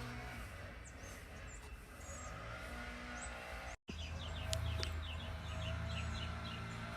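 Small birds chirping with short high calls, including a quick run of repeated notes in the second half, over a steady low hum. The sound cuts out completely for an instant just before the middle.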